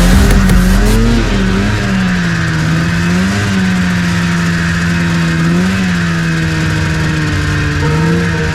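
A small engine running steadily, its pitch rising briefly and falling back several times as the revs change.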